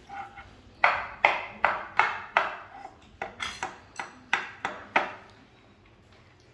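A toddler's chopsticks banging down repeatedly at a meal: about a dozen sharp knocks, two to three a second, stopping about five seconds in.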